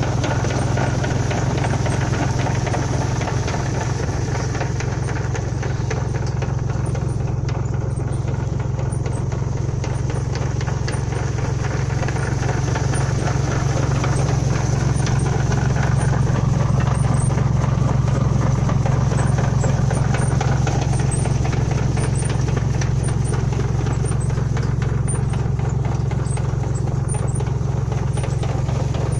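Tractor engine running steadily as it pulls a garlic planter, with the clatter of the planter's chain elevators.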